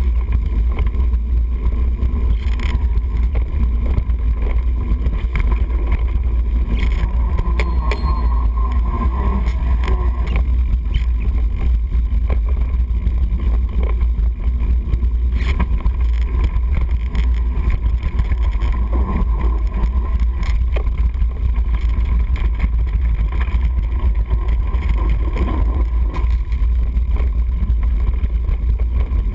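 Wind buffeting an action camera's microphone during a fast mountain-bike ride on a dirt trail: a steady heavy rumble with tyre noise over the dirt and occasional clicks and knocks from bumps.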